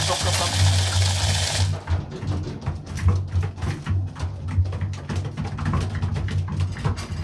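Background music with a drum beat and a steady bass, with a rushing noise over it for the first second and a half.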